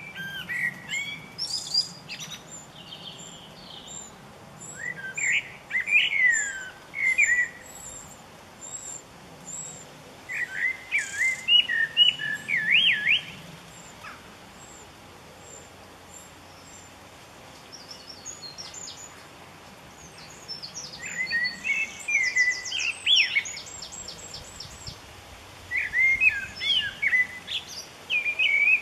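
A wren singing about five phrases of rapid rising and falling notes, each two to three seconds long, spaced several seconds apart. Between the first phrases, a thin, very high note repeats two to three times a second for several seconds.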